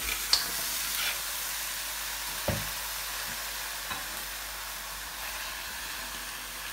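Raw chicken pieces sizzling in a hot karahi, a steady hiss, with a few light knocks as the pieces go in and settle; a wooden spoon starts turning them near the end.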